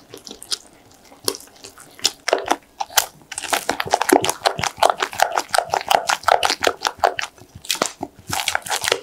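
Silicone spatula stirring thick batter of pancake mix, milk and matcha powder in a glass bowl: wet squelching strokes and scrapes against the glass. The strokes are sparse at first, then quick and continuous from about three and a half seconds in, as the batter comes together.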